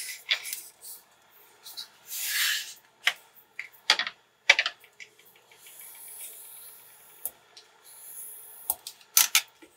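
Bone folder rubbing and burnishing along white cardstock in short scraping strokes, with several sharp clicks and taps of small tools set down on a glass craft mat.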